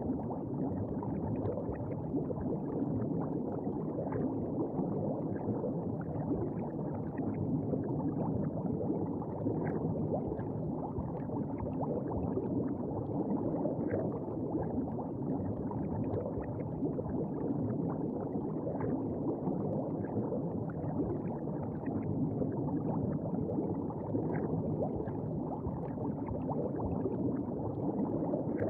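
Underwater ambience sound effect: steady, muffled bubbling and gurgling of water, with small faint bubble pops over it.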